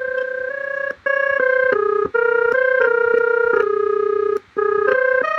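Simple software synthesizer, generated in Blender by the Audio Nodes add-on from MIDI keys played on an iPad, playing a quick melody of single notes, each held a fraction of a second. It pauses briefly three times: about a second in, about two seconds in, and about four and a half seconds in.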